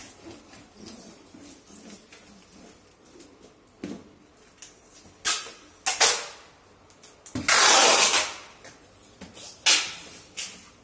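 Packing tape being ripped off the roll and laid onto a cardboard box. A few short rips come first, then the longest and loudest rip about two-thirds of the way in, then two more short rips near the end.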